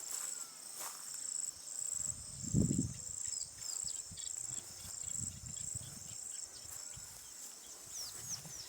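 Insects chirping in a steady, high, pulsing rhythm, about two pulses a second, with low rumbling thumps about two seconds in and again around five seconds.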